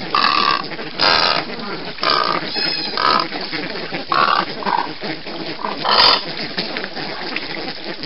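A flock of white ibises calling as they feed: short calls overlapping and repeating about once a second, the loudest about six seconds in.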